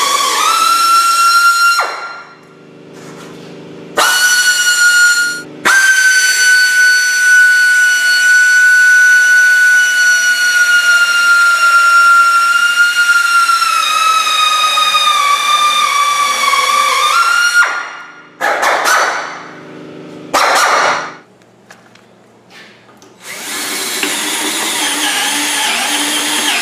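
Right-angle drill with a step bit boring holes through the steel pinch weld. It runs as a loud whine in several spells, the longest about eleven seconds, and its pitch sags slowly as the bit loads up in the metal. Near the end a cordless drill runs with a rougher sound.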